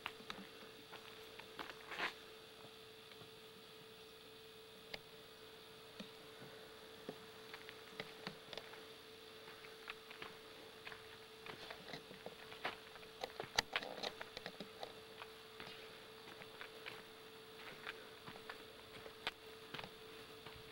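Faint steady hum with scattered light clicks and taps, a cluster of louder clicks about two-thirds of the way through.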